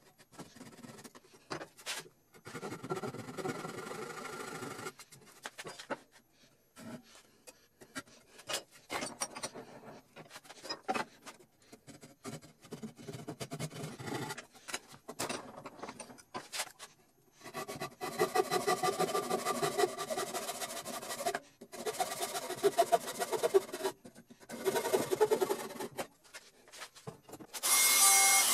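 Hand saw crosscutting a wooden strip in runs of back-and-forth strokes, stronger in the later runs. Near the end, a drill runs steadily for about a second, boring a pilot hole into the end of the strip.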